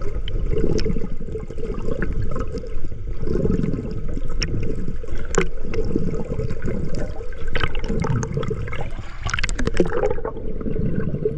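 Swimmer's strokes heard underwater: muffled rushing and bubbling water that swells and fades every second or two, with scattered sharp clicks.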